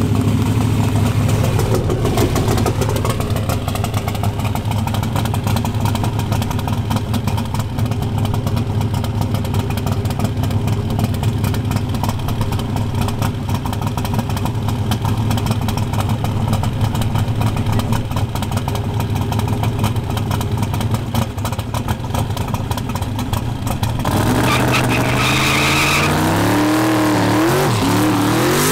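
A street drag car's engine running loud and steady for most of the time. About 24 seconds in it begins revving up and down as the car does a burnout, its rear tyres spinning and smoking.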